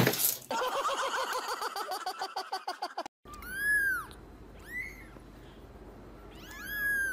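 A kitten mewing three times, high thin calls that rise and fall, about a second apart. The first few seconds hold a rhythmic pitched pulsing at about five beats a second, which cuts off before the mews.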